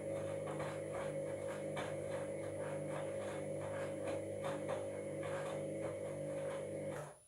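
Washing machine running at the start of a wash: a steady motor whine and hum with a regular grinding rasp repeating a few times a second, which the owner takes for worn drum bearings. It cuts off suddenly near the end.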